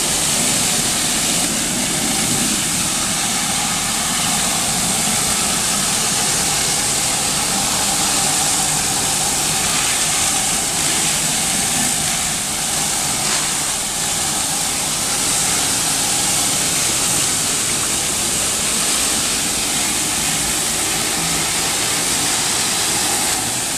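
SX-12 hard-surface spinner tool cleaning tile, with its water jets at 400 PSI and vacuum recovery. It makes a steady, loud hissing rush that dips briefly about two-thirds of the way through.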